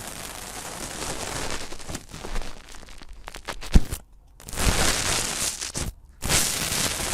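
Slime being squeezed and pressed by hand, a crackly, crunchy squishing with small pops. A sharp, loud pop comes a little before the middle, and the sound stops abruptly twice for a moment.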